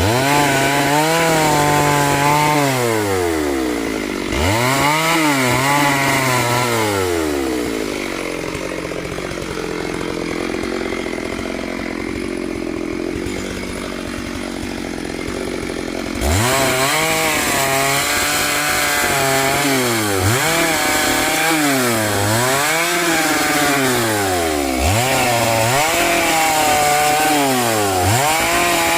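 Chainsaw engine revved up and down over and over, its pitch climbing and dropping every second or two. In the middle stretch it gives way to a lower, steadier noise with no clear pitch, and the revving comes back abruptly.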